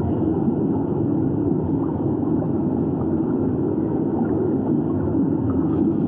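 Underwater ambience heard through an underwater microphone: a steady low rumble of moving water, with a few faint clicks.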